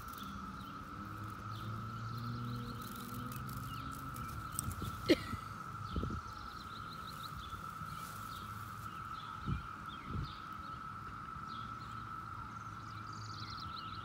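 Chorus of Brood X periodical cicadas: a steady drone at one pitch that does not let up. A sharp click about five seconds in and a few low thumps stand out over it.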